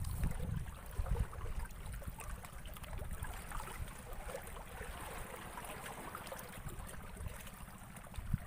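Wind rumbling on the microphone, with gusts in the first second or so, over faint water lapping and trickling.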